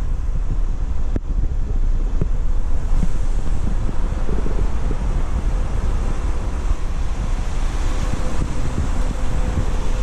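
Wind buffeting the microphone: a steady low rumbling noise.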